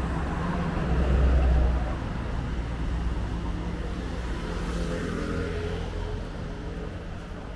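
A motor vehicle's engine running close by on a street, loudest a second or two in, over steady road traffic noise.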